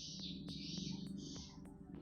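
Soft background music with a light, steady ticking beat over low sustained tones.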